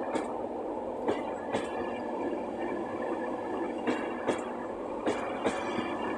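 Mark 4 coaches of an LNER InterCity 225 train running past a platform: a steady rumble of wheels on rail, broken by sharp clicketty-clack wheel clicks that mostly come in pairs.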